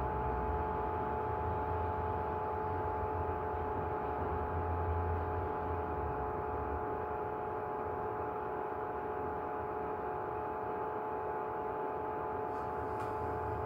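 Steady room hum: a continuous machine drone with several fixed whining tones and a low rumble underneath, unchanging throughout.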